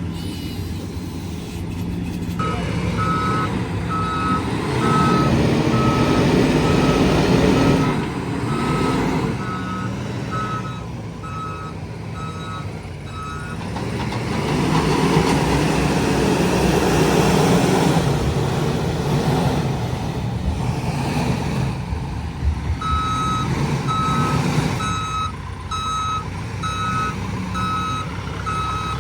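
Diesel engine of a JCB 437 wheel loader working as it loads sand, revving up hard twice. A reversing alarm beeps in a regular pattern through the first half and again near the end as the machine backs up.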